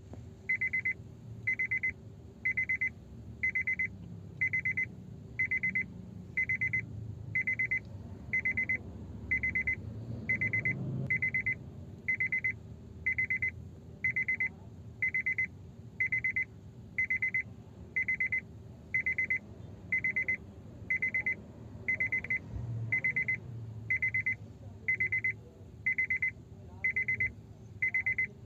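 Car ignition-key warning chime: a high electronic beep repeating evenly about once a second, each beep about half a second long.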